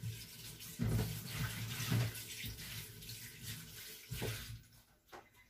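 Kitchen tap running into the sink while leafy greens are rinsed by hand in a plastic basket, with splashing and a few soft knocks. The water stops about four and a half seconds in.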